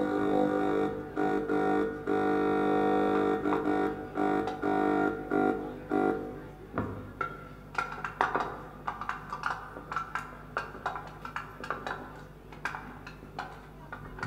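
Live film-scoring music from a small acoustic ensemble: a held, droning chord for the first half, then, from about halfway, sparse short plucked and tapped notes with small percussion hits.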